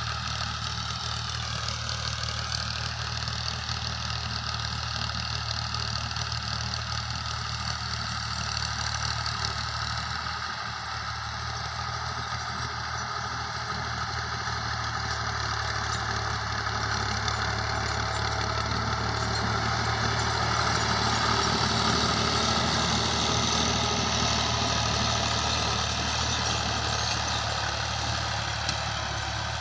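Farm tractor engine running steadily while it drags a levelling blade across a field. It grows a little louder about two-thirds of the way through, then eases back.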